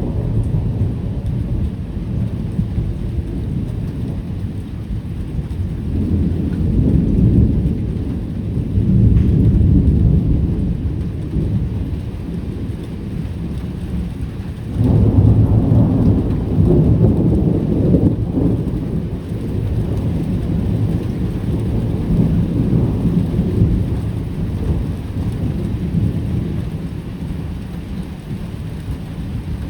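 Thunder rumbling over steady rain, the deep rumble swelling and easing several times. The loudest roll comes on suddenly about halfway through, then fades off toward the end.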